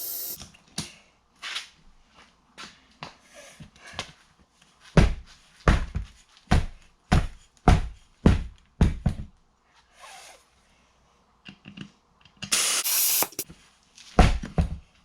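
Heavy thumps, about seven in quick succession, as an ATV tire is worked to seat its bead on the rim. Near the end comes a short hiss of compressed air, then one more thump.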